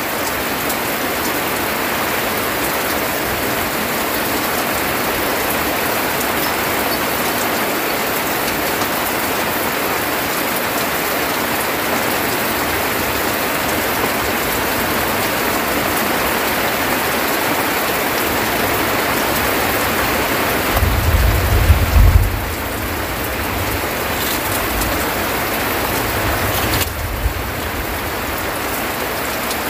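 Heavy rain pouring steadily on a thatched roof and the surrounding forest. About two-thirds of the way through there is a loud low rumble lasting a second or two.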